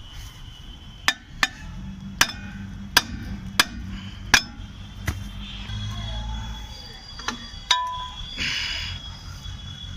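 Sharp metallic taps and clinks of tools on drum brake parts during a brake shoe change, about ten spread irregularly over the first eight seconds, then a short hiss a little after eight seconds.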